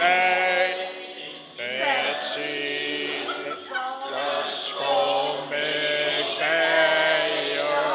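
A group of women singing a song together, with long held notes; the singing drops away briefly about a second in.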